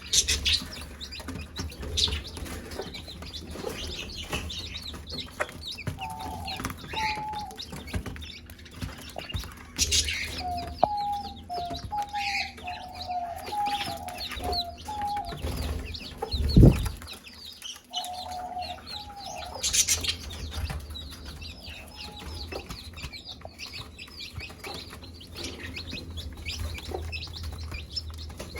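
Hen clucking in short runs of repeated notes among a steady chorus of high chick peeps. A single loud low thump comes about halfway through.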